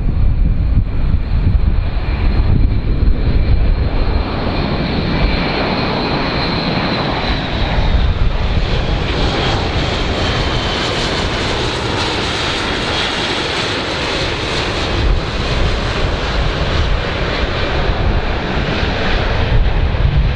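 Airbus A400M's four turboprop engines with eight-blade propellers droning as the aircraft flies low past, a high whine over the rumble that falls a little in pitch about halfway through as it goes by.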